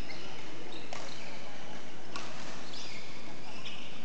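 Badminton rally sounds: sharp racket-on-shuttlecock hits about one second in and again about two seconds in, with short high squeaks of court shoes on the floor.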